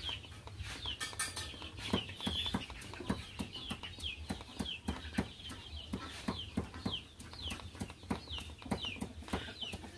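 Chickens in the background: short high falling peeps repeating about twice a second, with short clucks in between.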